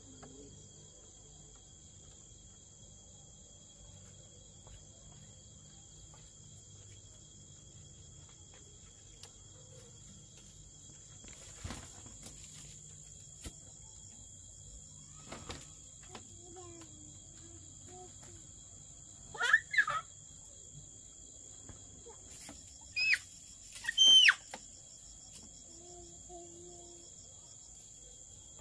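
Steady high-pitched drone of crickets or other insects. Several short, loud, high calls that bend up and down in pitch come through it, once about two-thirds of the way in and twice more near the end.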